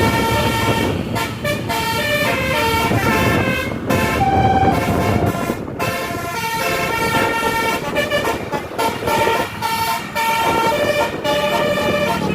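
Putera Utama tour bus's basuri musical horn playing a tune: loud held horn notes stepping up and down in pitch, with a few brief breaks, over a low rumble.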